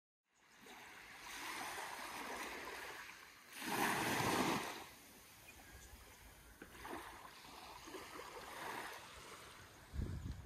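Small waves lapping and washing onto a sandy beach, rising and falling, with one louder wash about four seconds in. A few low thumps come near the end.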